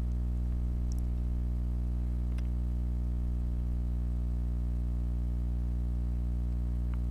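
A steady low hum with a stack of even overtones that does not change, with a few faint clicks.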